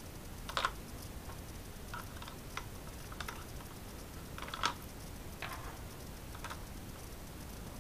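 Small metal screwdriver bits and tools clicking against each other and a plastic holder as a hand picks through them: scattered light clicks, with two louder clatters about half a second in and a little past the middle.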